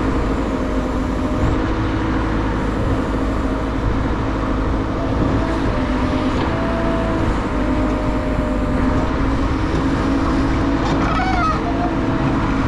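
Backhoe loader's diesel engine running steadily under digging load as the bucket scoops soil, its pitch shifting slightly as the arm works.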